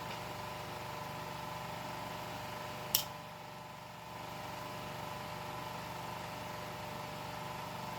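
Steady low mechanical hum, with one short sharp click about three seconds in.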